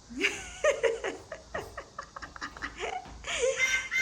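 A person laughing in a run of short bursts.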